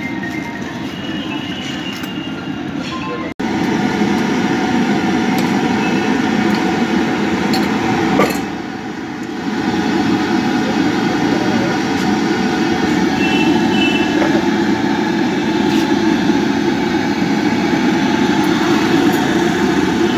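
Steady street noise of vehicles, with indistinct voices. About three seconds in the sound cuts out for an instant and comes back louder; a single sharp click comes about eight seconds in.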